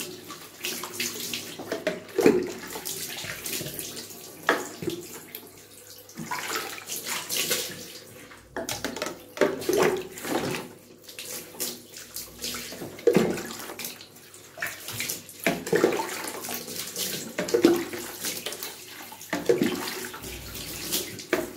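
Water scooped from a bucket with a plastic cup and poured over a wet dog standing in a bathtub, splashing into the tub in repeated pours every few seconds.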